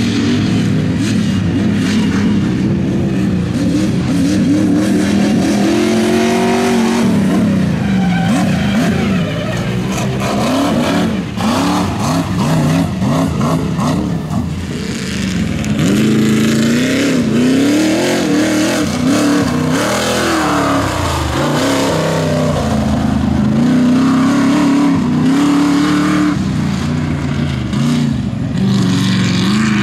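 Off-road race vehicle engines revving hard and dropping back again and again, the pitch rising and falling every second or two, with more than one engine heard at once at times.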